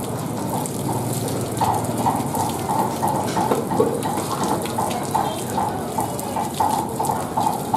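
Water gushing from a hose with a brass tap nozzle and splashing unevenly over a scraped goat carcass, running off into a metal basin.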